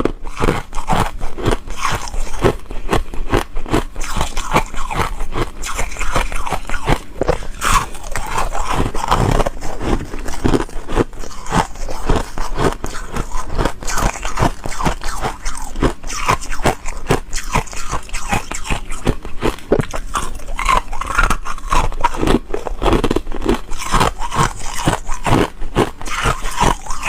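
Foam ice being bitten and chewed close to the microphone: a dense, continuous run of crunches.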